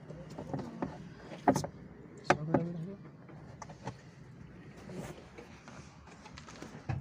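Scattered knocks and clicks of tools and parts being handled, over a low steady hum. The loudest are two sharp knocks about a second and a half and two and a third seconds in.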